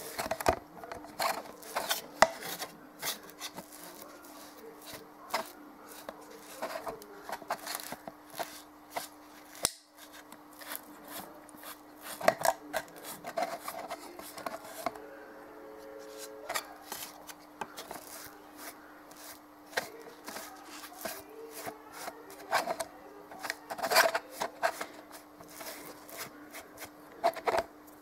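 Paintbrush dabbing and rubbing acrylic paint onto a plastic bottle vase and its base: irregular scratchy taps and strokes, with a faint steady hum underneath.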